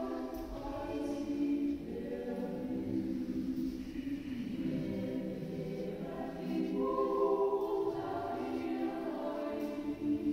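Choir singing slow phrases with long held notes.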